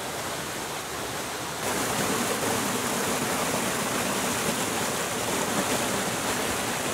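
Mountain creek rushing and splashing over mossy boulders and small cascades, a steady rush of water that gets louder about a second and a half in.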